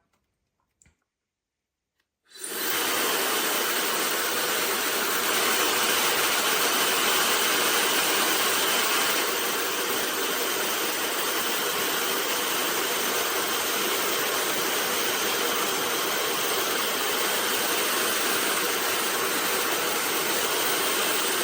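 OSOU high-speed ionic hair dryer running and blowing air at a steady level, starting abruptly about two seconds in after a moment of silence.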